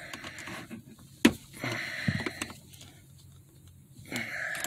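Small flathead screwdriver scraping and clicking against the armrest hinge pin of a Toyota RAV4 center console as the pin is worked out, with one sharp click about a second in.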